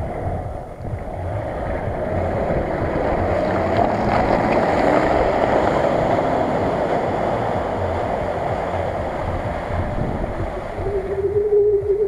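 Off-road SUV driving through deep mud, its engine running under a steady rush of wind noise on the microphone and mud splashing. A steady tone comes in near the end.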